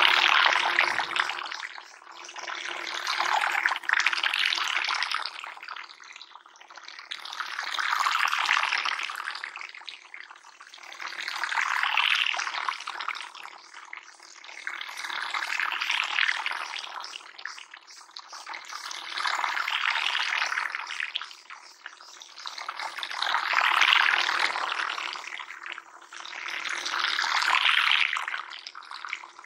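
Water rushing and splashing in regular swells that rise and fade about every four seconds, with a faint steady hum underneath.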